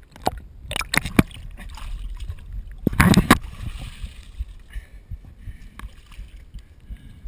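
Water sloshing and dripping as a swimmer climbs out onto a rocky bank, with sharp knocks and rubbing right against the body-worn camera. The loudest burst comes about three seconds in.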